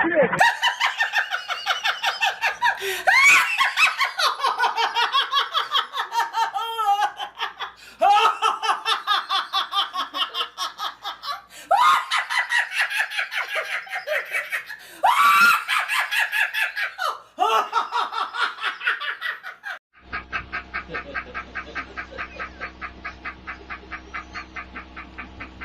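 A run of laughing sound effects: several separate clips of rapid, high-pitched "ha-ha-ha" laughter, one after another. About twenty seconds in, it changes to a quieter, evenly pulsing laugh with a steady hum beneath it.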